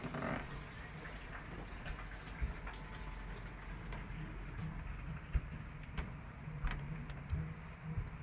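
Phone-microphone handling noise while walking: rubbing and scattered light knocks and clicks over a steady low hum.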